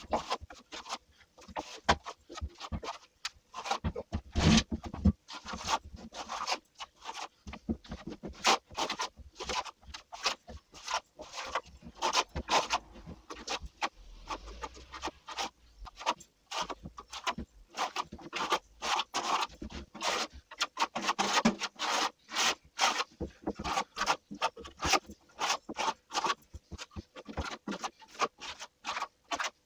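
Steel plastering trowel scraping and rubbing across the wall as a thin first skim coat of wet multi-finish plaster is spread on, in a run of short, quick strokes, several a second.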